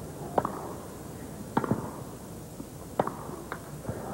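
Tennis ball struck by racquets during a rally on a grass court: a handful of sharp pops about a second apart over a low murmur from the stadium crowd.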